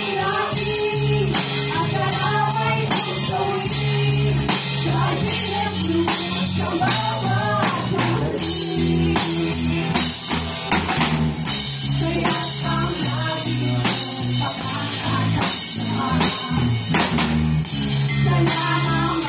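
Two young female voices singing a song in duet through microphones, backed by a live band playing drum kit with cymbals and guitar.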